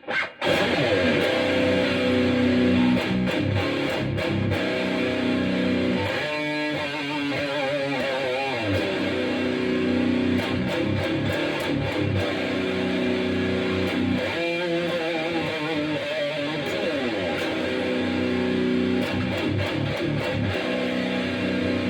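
Electric guitar, a 1991 B.C. Rich Platinum Series Bich played through a Crate Blue Voodoo 60 amp and Zoom GFX-1 effects, playing a slow sludge-style riff of held chords. Bent, wavering notes come in about a third of the way through and again past the middle.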